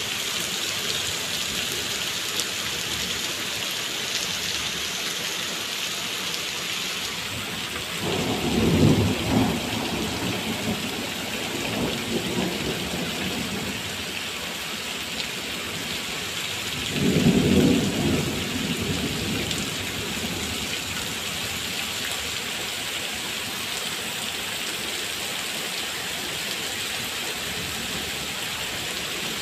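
Heavy rain falling steadily on wet paving, with two short rolls of thunder, about eight seconds in and again about seventeen seconds in.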